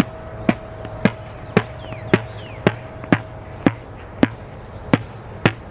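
Tennis ball bounced up over and over off a racquet face coated solid with Flex Seal rubber in place of strings: sharp, evenly spaced taps, about two a second.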